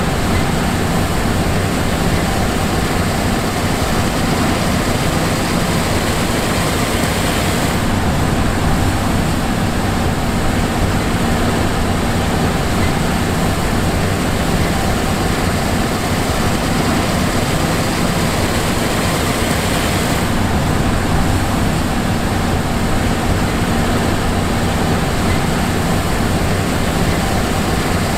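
John Deere S780 combine harvester running steadily, a constant drone with a few held hum tones and a broad hiss. The hiss grows brighter for a stretch in the middle, then settles back.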